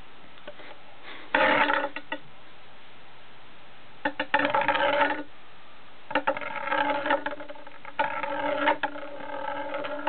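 3D-printed plastic spinning top rattling and scraping in about five separate bursts of a second or so, each with a steady ringing pitch under the clatter.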